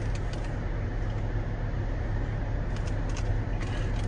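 Steady low rumble of a car heard from inside the cabin, with a few light clicks about three seconds in.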